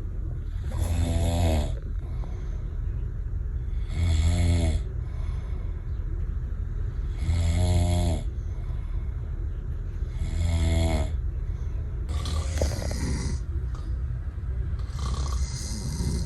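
A sleeping person snoring, six snores of about a second each, roughly one every three seconds, over a steady low hum.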